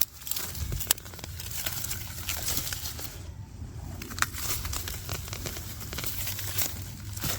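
Rustling, crinkling and crackling of onion plants and their leaves being pulled and handled, with scattered small snaps and ticks.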